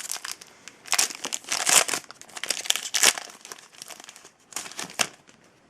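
Topps trading card pack wrapper being torn open and crinkled in the hands, in several irregular rustling bursts that die away near the end.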